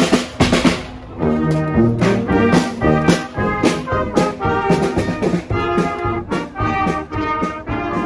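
Marching band of young players playing a march on brass instruments (trombones, tubas, euphoniums, trumpets and cornets) with snare drum. Drum strokes lead, and held brass chords come in about a second in over a steady beat.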